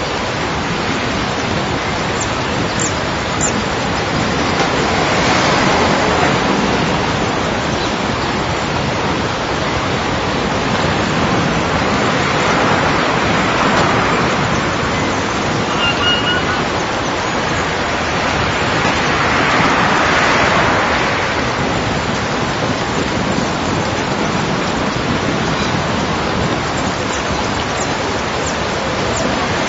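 Layered garden field recordings forming a dense rushing noise that swells and fades about every seven seconds. There is a brief high note about sixteen seconds in.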